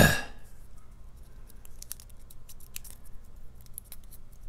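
Small, sharp metallic clicks and scrapes from a brass lock cylinder being reassembled by hand, its plug and small fittings being pushed and worked into place, coming irregularly. A brief loud burst right at the start.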